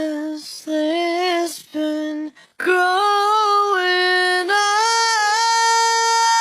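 Music with a high singing voice: short broken phrases, then from about two and a half seconds in long held notes.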